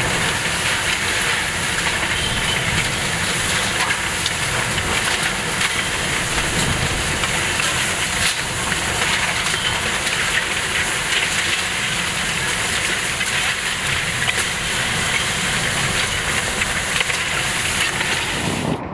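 Category 4 hurricane winds rushing steadily and loudly between buildings, with scattered sharp clicks and knocks of flying debris throughout.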